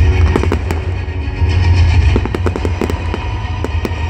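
Fireworks display: shells bursting in rapid succession, a continuous low booming rumble with many sharp cracks and crackles on top, over loud music.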